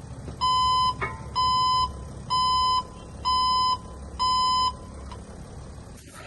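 Backup (reverse) alarm of a 2021 Mercedes Sprinter cargo van beeping with the van in reverse: five even beeps of one steady pitch, about one a second, from the alarm speaker mounted behind the rear bumper.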